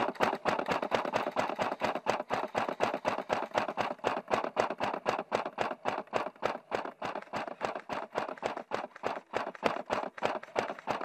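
A steady train of sharp clacks, evenly spaced at about five a second.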